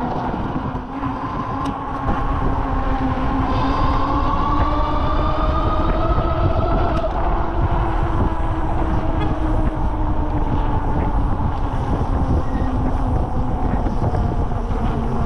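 Electric motor whine rising slowly in pitch for a few seconds, then dropping back and running steady, over a heavy low rumble.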